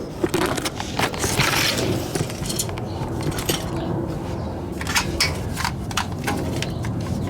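Scattered light metallic clicks and scrapes from a loose bolt being drawn along inside a pickup's steel frame rail with a magnet, over a steady low rumble.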